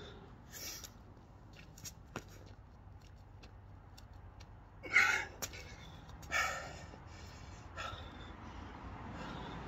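A man breathing hard from exertion, with short forceful exhales. Two loud ones come about halfway through, a second and a half apart, among a few fainter breaths and light taps.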